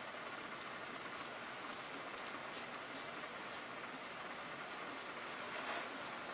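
Chinese ink brush brushing and dabbing across paper in short texture strokes: a soft, irregular scratching over a steady hiss.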